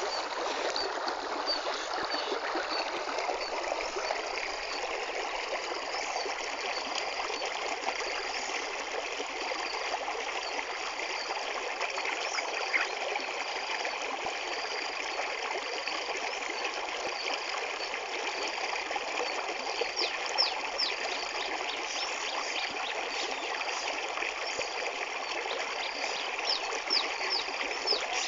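Flowing water running and trickling steadily, like a small stream, with a few brief sharp high sounds about two-thirds through and again near the end.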